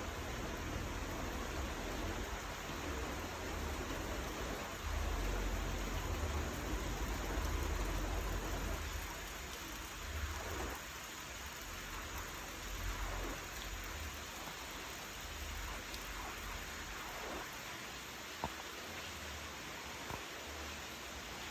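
Rain falling steadily, an even hiss of drops, with a low rumble underneath that is loudest from about five to nine seconds in.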